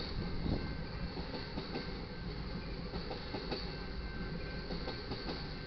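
Crude oil tank cars of a freight train rolling past at a grade crossing: a steady rumble of steel wheels on rail with faint clicks over the joints.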